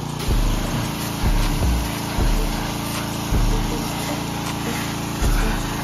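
Pressure washer running, a steady machine hum with a low surge about once a second, over the hiss of the water spray.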